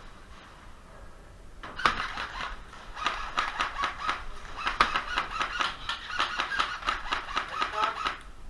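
Airsoft guns firing, a fast irregular run of sharp clicks that starts about two seconds in and stops just before the end.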